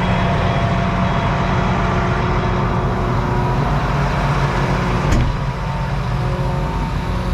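Farm tractor engine running steadily, heard from inside the cab, with a sharp click about five seconds in after which the engine note shifts slightly.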